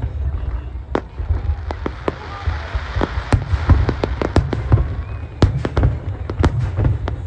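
Aerial fireworks shells bursting in quick, irregular sharp bangs over a constant deep rumble, with a crackling hiss from crackling stars in the middle stretch.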